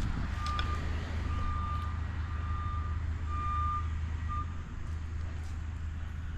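Heavy machine's backup alarm beeping about once a second over its engine's low, steady running. The beeps stop a little after four seconds in, and the engine eases off just after.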